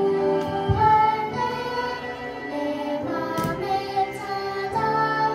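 A children's worship song playing: singing over instrumental accompaniment, with a steady run of held melody notes.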